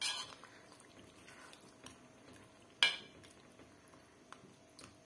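A metal spoon knocking against the side of a pilaf cauldron as rice is pushed about in the cooking liquid: a sharp clink at the start and a louder one a little under three seconds in, with a few faint ticks between.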